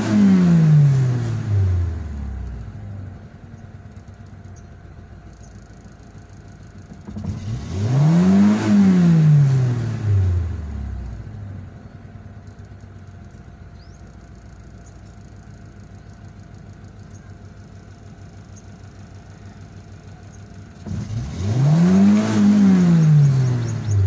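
Honda car engine revved three times, about eight and fourteen seconds apart: each time the pitch climbs and falls back to a steady idle. After the cleaning, the idle settles without hunting.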